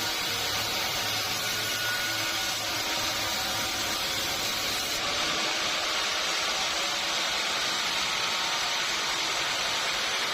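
Sawmill machinery running with a steady, even hiss-like noise. A low hum underneath drops out about halfway through.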